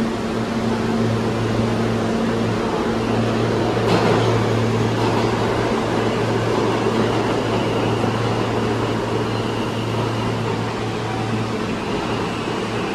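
A New York City Subway R160 train at the platform with a steady low hum from its equipment, and a single clank about four seconds in. Near the end a faint high whine comes in as the train starts to pull out.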